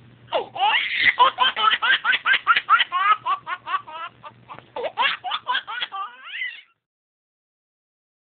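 A baby laughing hard in a long run of quick, high-pitched giggles, about five a second, with a short break about four seconds in. The laughter stops about six and a half seconds in.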